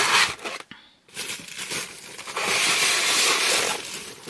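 Packaging crinkling and rustling as an item is unwrapped by hand. There is a short burst at the start, then a longer, louder stretch from about a second in.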